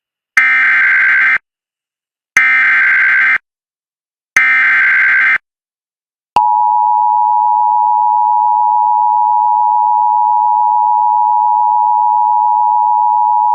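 Emergency Alert System SAME header: three one-second bursts of buzzing data tones, a second apart. About six seconds in comes the steady two-tone EAS attention signal, the alert tone that opens a new warning.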